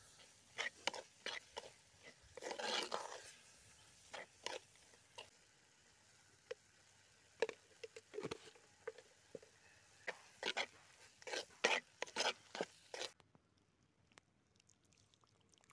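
Metal spoon stirring fried onions, garlic and green chillies in a cooking pot, with irregular scrapes and knocks of the spoon against the pot. The sound drops away suddenly about thirteen seconds in.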